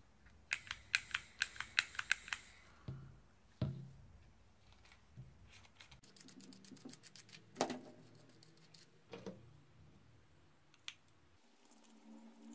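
Small hard plastic and metal clicks, taps and knocks as a Dremel VersaTip butane soldering iron is handled and taken apart: a quick run of about a dozen clicks near the start, a single knock, then another quick run of finer clicks around the middle, and a few separate clicks.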